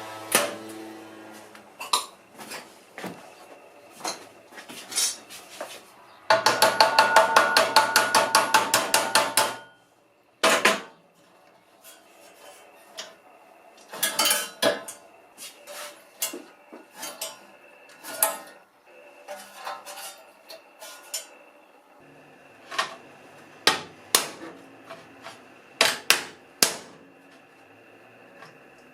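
Scattered metallic knocks and clinks of tools and parts being handled, with one loud burst of fast rattling about six seconds in that lasts about three seconds.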